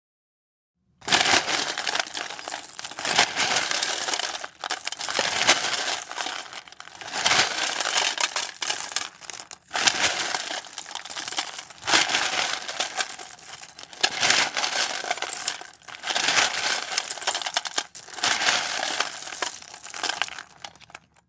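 A hand rummaging and digging through a box of small hard objects: continuous rattling, clinking and clattering in bouts, with short pauses between handfuls.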